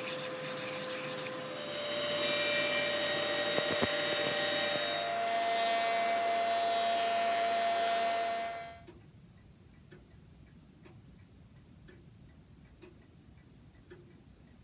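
Hand tool working an oak moulding: a run of quick rasping strokes, then several seconds of steady rubbing. It stops about nine seconds in, leaving a clock ticking about once a second.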